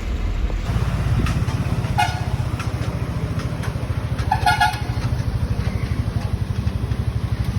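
A motor vehicle's engine running with a fast, even chug that grows louder under a second in. Two horn beeps sound over it, a short one about two seconds in and a longer one about four and a half seconds in.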